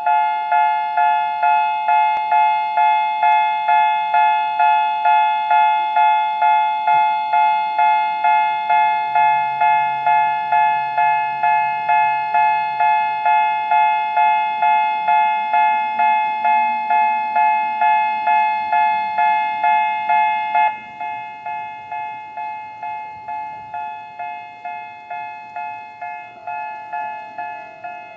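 Japanese railway level-crossing alarm with the electronic Sangi-type bell tone starting up and ringing steadily at about two strikes a second. About two-thirds of the way through it drops to a lower volume and keeps ringing.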